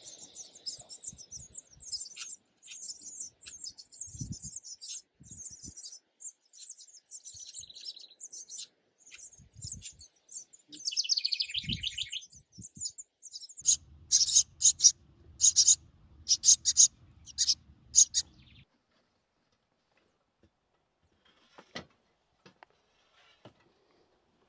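House wren at its nest box: many high, quick chirps, with a bubbling, falling song about eleven seconds in. From about fourteen to eighteen seconds a run of loud, rapid notes sounds over a low rumble.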